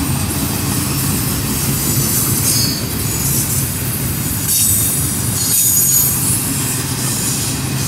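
CSX freight train's double-stack container well cars rolling past: a steady low rumble of wheels on rail, with high-pitched wheel squeal coming and going.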